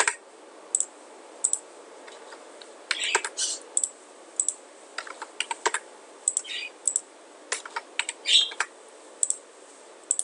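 Typing on a computer keyboard: irregular keystrokes in short runs of a few clicks, over a faint steady hiss.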